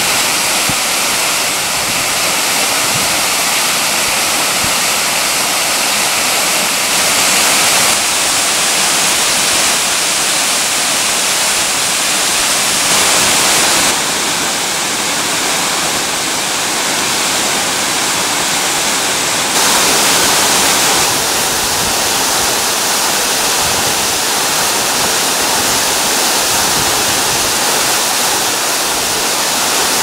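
Waterfall pouring down a rock face: a loud, steady rush of falling water whose tone shifts abruptly several times.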